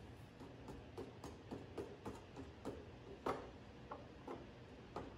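Faint regular clicking, about three or four clicks a second, with one louder click about three seconds in.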